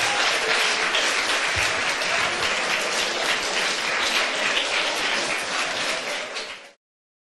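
Lecture-hall audience applauding steadily, a dense even clatter of many hands; it cuts off suddenly near the end.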